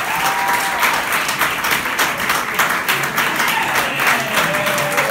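Audience applauding, dense clapping that carries on at an even level.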